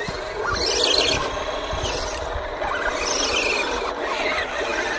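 Small electric motors and gearboxes of radio-controlled scale crawler trucks whining as they drive through mud and water, the pitch rising and falling with the throttle.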